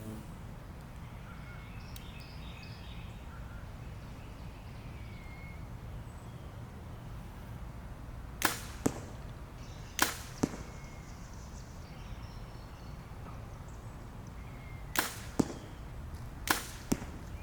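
Arrows shot from a bow at a target 30 yards off: four shots, each a sharp release followed about half a second later by the arrow striking the target. Faint bird chirps come in the first few seconds.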